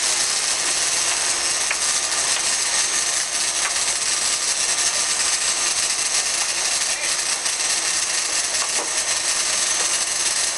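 Big-game fishing reel's drag buzzing steadily as a hooked blue marlin pulls line off it.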